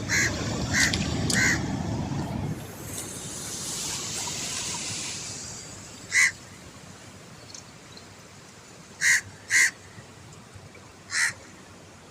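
A bird calling in short harsh calls: three in quick succession at the start, one about six seconds in, a quick pair about nine seconds in and a last one near the end. A low rumbling noise runs under the first calls, and a hiss follows in the middle.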